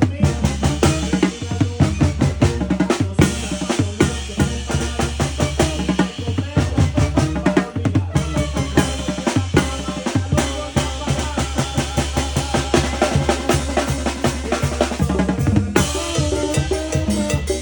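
Mexican banda percussion section playing a fast, driving rhythm: bass drum and snare drum with rimshots, struck in dense, even strokes throughout.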